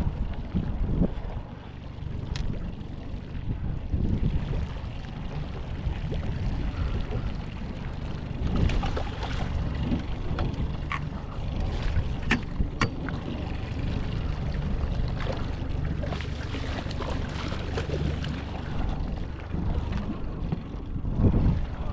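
Strong wind buffeting the microphone, a steady low rumble, with scattered sharp clicks and knocks, most of them in the middle of the stretch.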